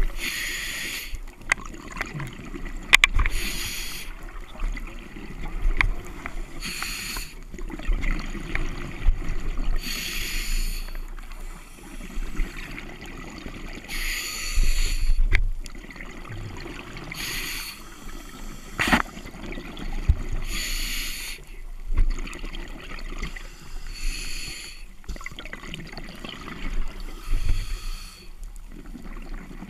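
Scuba diver breathing through a regulator underwater, heard through the camera's housing: a hiss with each breath about every three seconds, with rumbling exhaled bubbles in between. A few sharp clicks, the loudest about two-thirds of the way through.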